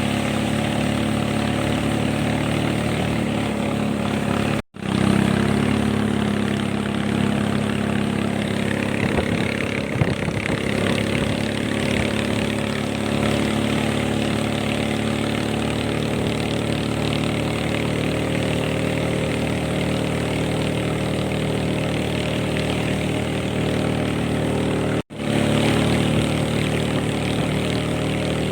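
Boat engine running steadily at speed, with a rushing haze of wind and water over it; the sound drops out for an instant twice.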